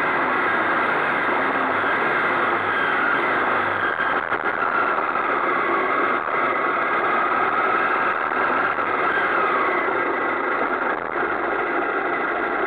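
Honda CBX 250 Twister's single-cylinder four-stroke engine running as the motorcycle slows down from road speed, under a steady rushing noise.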